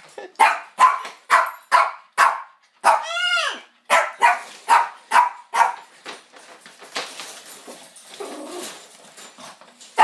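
Small dog barking rapidly from inside a wire crate, about two barks a second, broken by one longer rising-and-falling call about three seconds in. After about six seconds the barks give way to softer, scrappier sounds.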